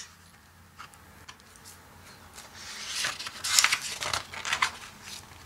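A page of a hardcover picture book being turned by hand: soft paper rustling and brushing that starts about halfway through and lasts a couple of seconds.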